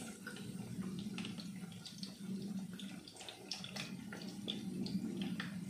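Battered calamari rings and French fries deep-frying in hot oil, sizzling with irregular crackles and pops, over a steady low hum.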